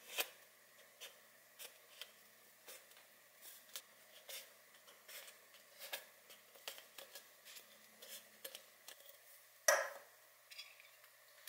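Soft crinkles and small scattered clicks of vinyl electrical tape being pressed and smoothed around the cut rim of an aluminium beer can, the thin can wall ticking under the fingers. A louder knock near the end as the can is set down on the wooden table.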